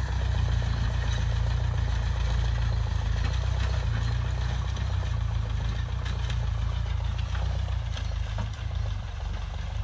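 Ford farm tractor's diesel engine running steadily under load, a low, even drone, as it pulls a plough through sugarcane stubble.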